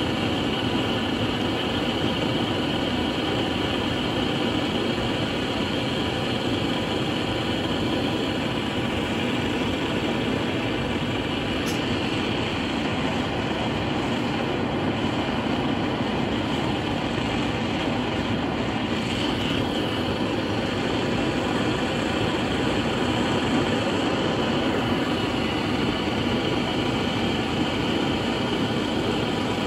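Propane torch flame burning steadily, a constant rushing noise, as it heats a steel tube fitting toward silver-soldering temperature.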